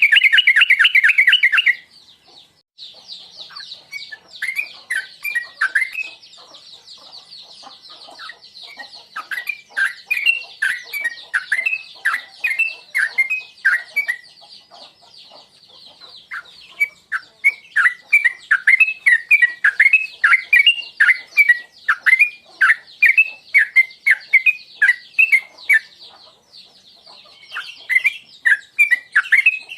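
Yellow-vented bulbul (trucuk) singing: a loud rapid trill that stops about two seconds in, then bouts of quick, bubbly chirping phrases with short pauses between them, over a steady high chatter.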